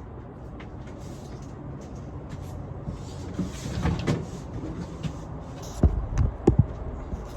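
Hollow plastic blow-mold figure being handled and moved: scattered clicks and knocks, busier about four seconds in, then three heavy hollow thumps about six seconds in.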